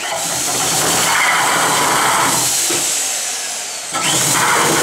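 Heavy corded drill driving a conical tenon cutter onto the end of a peeled aspen log: the motor runs under load while the blade shaves the wood down into a round tenon. It starts abruptly, eases for a moment just before four seconds in, then bites again.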